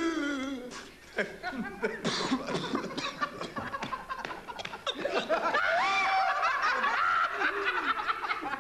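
People laughing and chuckling, several voices overlapping in short, uneven bursts.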